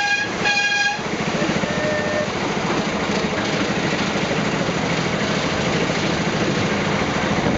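Small ride-on railway train running, its engine giving a steady rumble while the carriage moves along. Two short toots sound in the first second.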